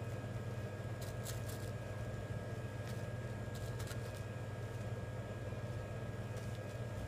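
Steady low hum of a store's background machinery, with a few brief faint clicks or rustles about a second in, around four seconds in and near the end.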